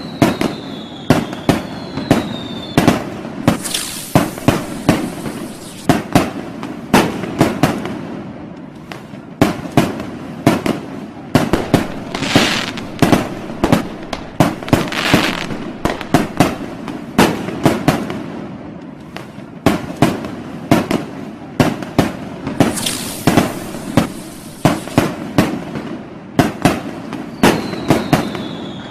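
Fireworks and firecrackers going off: a dense, irregular run of sharp bangs, several a second, with bursts of crackling hiss. There are falling whistles near the start and again near the end.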